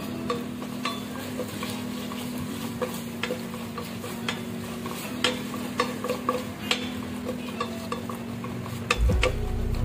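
Wooden spatula stirring and scraping onions, cashews and ginger garlic paste around the base of an aluminium pressure cooker, with irregular scrapes and taps against the metal and a light sizzle of frying in ghee.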